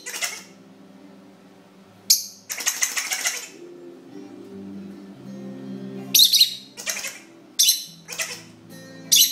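Lovebird giving short, shrill chirps about eight times, with some wing flapping. Between them a toy Ha Ha Hammer plays its low, stepping electronic laughing sound.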